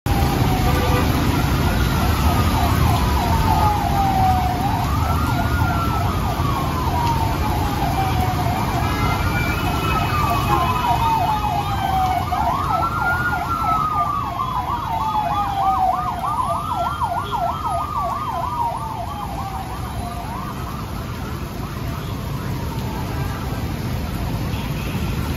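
Ambulance siren passing through heavy rain: a wail that climbs quickly and sinks slowly about every four seconds, mixed with a rapid yelp in the middle, fading out about twenty seconds in. Underneath is a steady hiss of heavy rain and motorbike traffic on the wet road.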